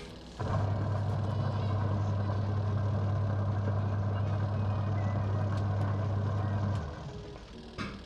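Twin-tub washing machine's wash motor and newly replaced gearbox turning the pulsator in the empty tub: a steady hum that starts about half a second in and stops after about six seconds, followed by a short click. It runs evenly and is judged okay now, the noisy-gearbox fault cured.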